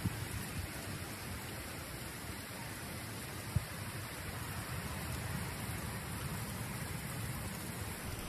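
Heavy tropical rain pouring steadily onto a pool and the terrace around it, with one brief knock about three and a half seconds in.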